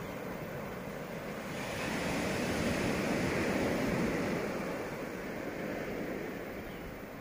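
Sea surf washing over shoreline rocks, with wind; the noise swells about two seconds in and eases off again.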